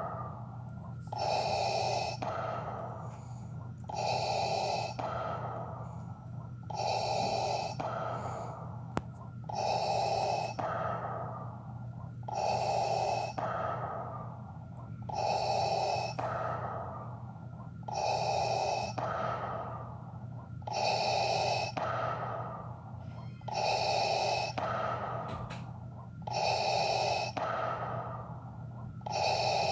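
Darth Vader's respirator breathing: slow, regular mechanical breaths through a mask, each cycle a louder, hissing half followed by a softer one, repeating about every three seconds.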